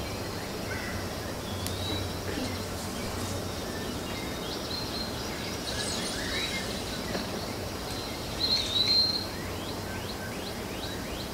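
Birdsong ambience played as a stage sound effect: scattered short bird chirps and calls over a steady hiss, with a louder chirping call about eight and a half seconds in.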